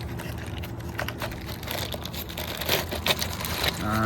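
Gear rustling and crinkling as it is rummaged through and pulled out of a bike storage bag, with irregular clicks and crackles that get busier partway through, over a steady low hum.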